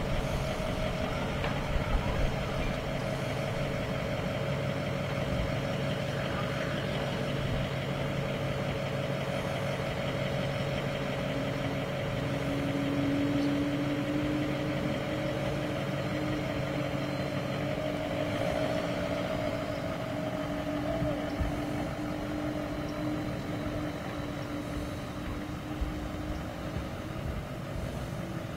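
Engines idling: a steady mechanical hum with held tones, a higher tone coming in about midway and a lower one dropping out a few seconds later.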